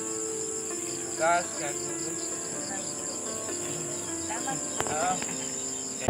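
Insects trilling steadily on a high pitch in dense vegetation, with a few short bird chirps over them, the loudest about a second in.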